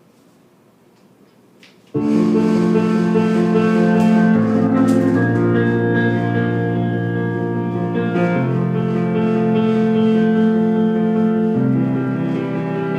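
Instrumental intro of a song: held keyboard chords come in abruptly about two seconds in after a faint start, changing chord a few times.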